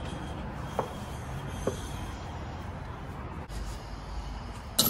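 Handling noise of an old rubber rear air spring being pulled out of the suspension of a Lexus GX470 by hand: low rustling and scraping, a couple of faint taps in the first two seconds and a sharp knock near the end.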